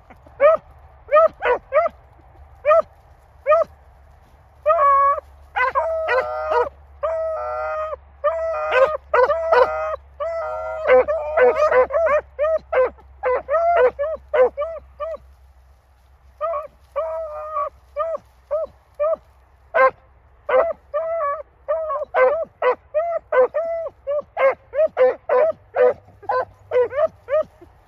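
Rabbit-hunting dogs barking in short, repeated high barks, several a second, with more than one dog's voice overlapping for a while before a short lull. Typical of hounds giving mouth as they run a rabbit's trail.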